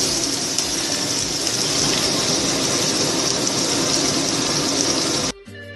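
Stir-fried pumpkin cubes sizzling steadily in a frying pan, with a spatula stirring them at first. The sizzle cuts off suddenly about five seconds in.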